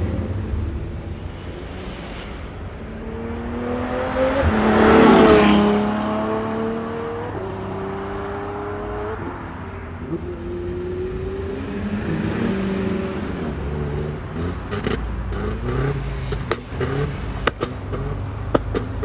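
Car engines accelerating away, their pitch climbing and then dropping back at each gear change. One car passes loudly about five seconds in, and short sharp clicks come in the last few seconds.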